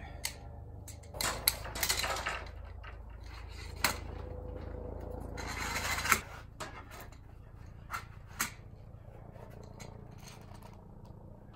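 Clinks, clicks and scraping from hands working a telescopic fibreglass antenna pole and its metal hose clamps (Jubilee clips). Two longer scrapes come about a second in and around five to six seconds in, with single sharp clicks scattered between.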